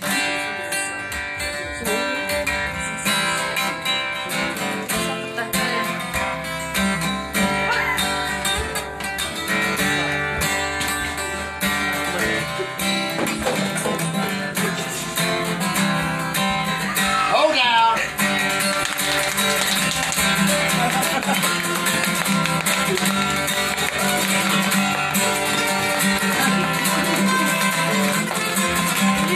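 Acoustic guitars playing together, one picking a lead solo line over strummed chords, with a few gliding notes about halfway through.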